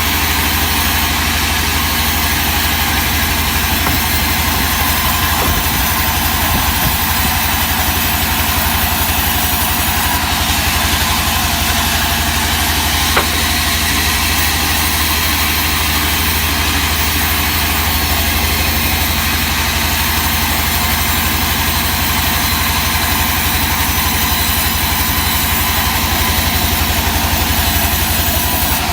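Sawmill machinery running steadily: a loud, unchanging engine drone, with a single sharp click about 13 seconds in.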